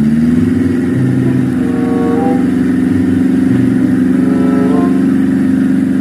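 Small dump truck's engine running loud and steady at raised revs, its pitch rising slightly at the start, while the hydraulic hoist tips the loaded bed to dump soil.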